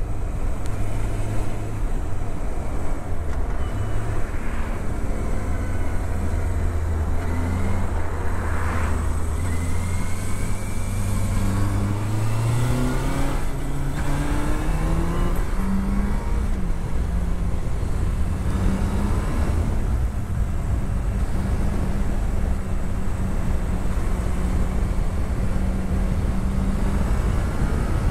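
Yamaha Fazer motorcycle engine under way: a low steady note that eases down over the first dozen seconds, then climbs in steps as the bike accelerates, and holds steady at the higher pitch.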